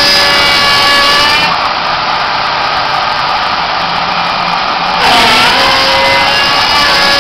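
CNC milling machine cutting D16 aluminium alloy: a steady pitched spindle-and-cutter whine. The sound turns noisier about a second and a half in, then glides down in pitch about five seconds in before settling into a steady tone again.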